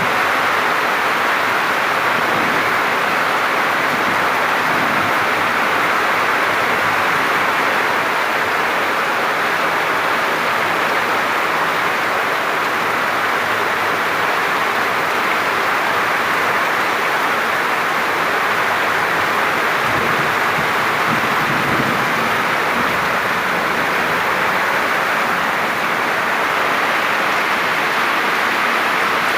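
Rain falling steadily and loudly as an even hiss, with no break or change.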